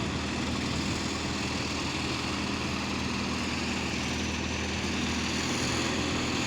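Diesel engine of a hydra mobile crane running steadily.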